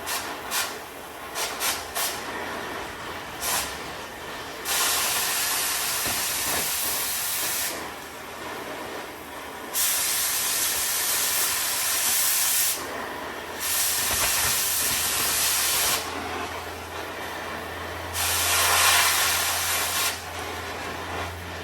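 Cutting torch blowing molten metal out of a slot in a steel truck frame, a little at a time: a few short pops, then four loud hissing blasts of a few seconds each as the cutting jet is fed in bursts.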